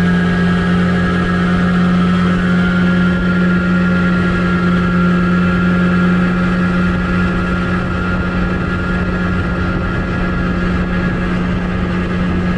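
Nissan 8 hp two-stroke outboard running at a steady pitch at full throttle, the boat on plane during a top-speed run.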